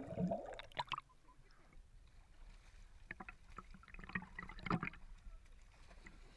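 Water splashing and sloshing from swimmers jumping off a floating log into a lake: a muffled underwater rush of bubbles at first, then scattered small splashes, with a brief cluster of louder splashes a little before the end.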